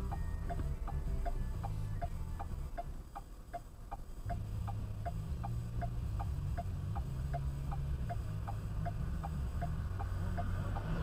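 Car's indicator flasher ticking evenly, just under three ticks a second, over the low hum of the idling engine inside the cabin. An oncoming car's rush begins right at the end.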